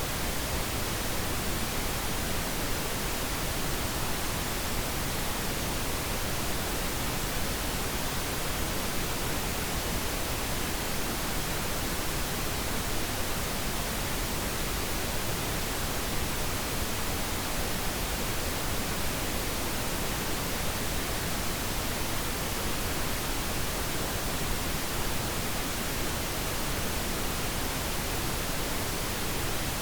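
Continuous pink noise: a steady, even hiss that does not change.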